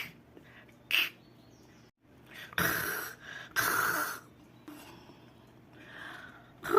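A person's voice making isolated phonics letter sounds rather than words: two short breathy pops, then two longer raspy, hissing throat sounds like a Portuguese guttural R.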